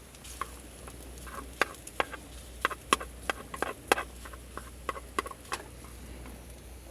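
A run of irregular sharp clicks and taps of varying loudness, bunched in the middle of the stretch, over a faint steady low hum.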